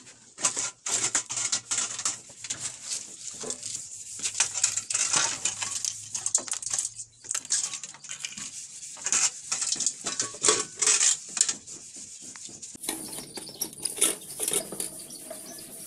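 Clatter of an old rice cooker and the clutter around it being handled: irregular knocks, scrapes and rubbing of metal and plastic as it is pulled out and its pot and parts are moved. About thirteen seconds in, the background changes abruptly and the knocks become sparser as the cooker is handled on a table.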